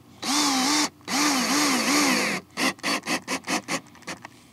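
Cordless drill driving screws into a plastic kayak hull, run part way down: two longer runs with the motor's pitch wavering under load, then a quick string of short trigger blips, about ten in a second and a half.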